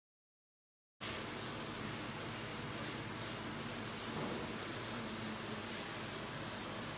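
Chicken breasts and pepper and zucchini pieces sizzling on a ridged grill pan: a steady hiss that starts abruptly about a second in.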